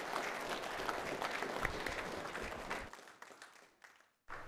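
Congregation applauding, with dense clapping that dies away about three seconds in.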